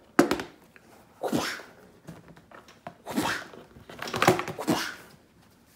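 Workshop handling noise: a sharp click, then a few short scrapes, rustles and knocks of parts being picked up and moved about.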